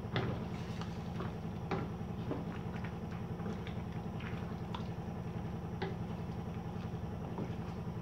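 Wooden spatula stirring chicken pieces in a wet curry gravy in a stainless steel pot: soft squelching with scattered light knocks against the pot, over a steady low hum.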